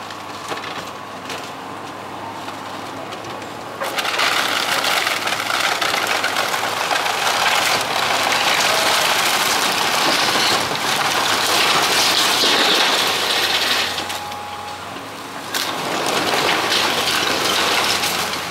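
Excavator demolishing a wood-framed building: a long run of crunching, splintering and falling debris over the steady hum of the machine's engine. The crashing gets loud about four seconds in, eases off for a moment near the fourteen-second mark, then picks up again.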